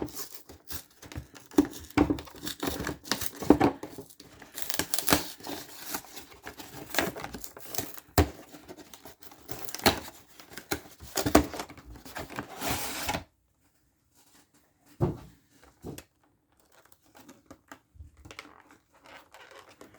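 Plastic shrink-wrap being torn and crumpled off a Pokémon trading card box, a dense crackling that lasts about thirteen seconds. It then stops, leaving a couple of light knocks and faint handling of the cardboard box.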